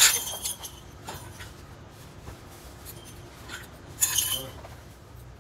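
Steel coil springs jingling and clinking as they are handled and dropped into empty metal oil-filter canisters: a loud clinking at the start, faint small clinks, and another clinking about four seconds in.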